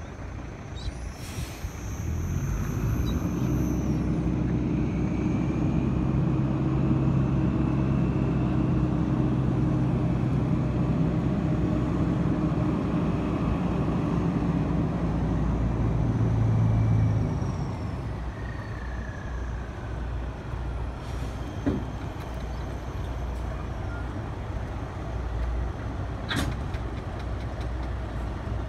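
Heavy diesel truck engines running. A loud, steady engine drone drops away suddenly a little past halfway, leaving a quieter idle, with two sharp knocks in the last third.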